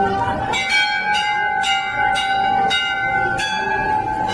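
Temple bells ringing, struck repeatedly about twice a second over a continuous ringing tone.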